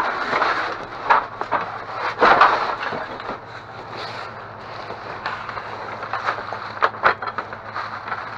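Discarded items being shifted and rummaged through in a dumpster: irregular clattering, scraping and sharp knocks, loudest in the first few seconds, over a steady low hum.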